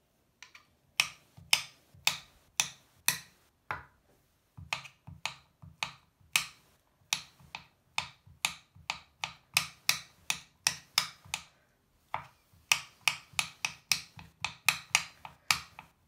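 Kitchen knife chopping a firm cosmetic bar into small cubes, each stroke a sharp crisp crunch and knock on the cutting board, about two to three a second, with two brief pauses.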